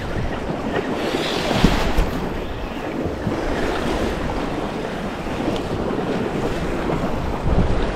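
Sea surf washing against shoreline rocks, with wind buffeting the microphone in gusts.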